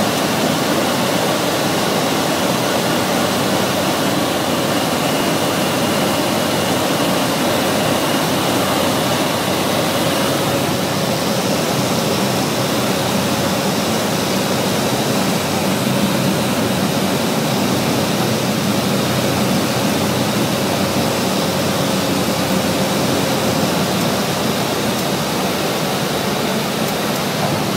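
Cabin noise of a single-engine propeller aircraft on final approach and landing: a steady engine and propeller drone mixed with the rush of airflow, heard from inside the cockpit.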